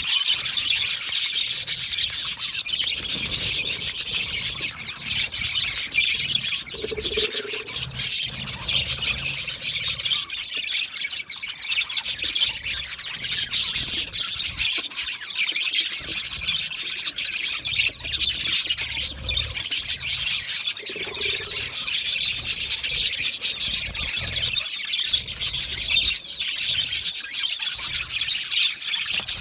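A colony of budgerigars chirping, whistling and chattering at once, a dense, continuous warbling chorus.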